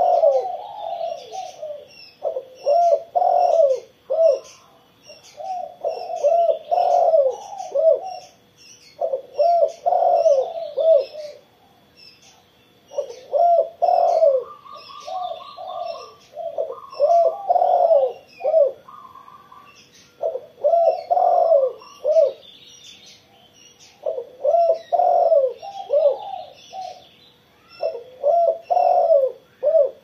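Caged spotted dove cooing, one phrase of several low coos after another every three seconds or so. High chirping of small birds runs behind it.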